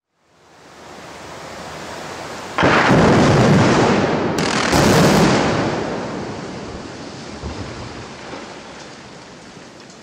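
Explosive charges bringing down reinforced-concrete bridge arches: a loud blast about two and a half seconds in and a second surge about two seconds later, then a long rumble as the concrete collapses, slowly fading.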